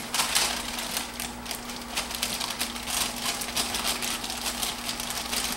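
Baking mix being scooped out of its plastic bag into a mixing bowl: irregular rustling and crinkling of the bag with small scrapes and clicks, over a steady low hum.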